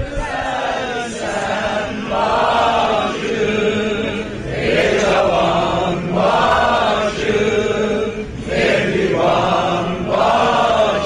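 A group of young men and women singing an Azerbaijani song together in unison, in drawn-out phrases about a second long with short breaks between them.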